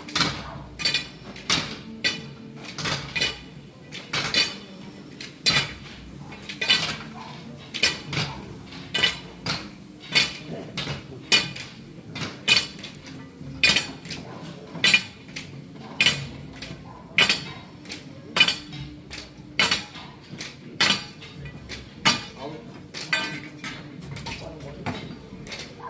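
Sharp metallic clinks in a steady rhythm, a little under two a second, each ringing briefly, with a faint murmur of voices beneath.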